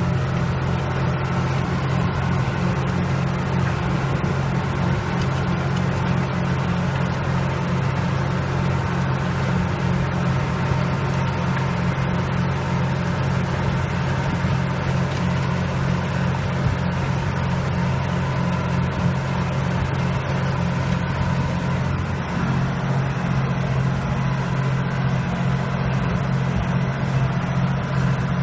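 Renault 106-54 tractor's diesel engine running steadily under load while pulling a four-furrow plough through the soil, with a slight change in engine note about 22 seconds in.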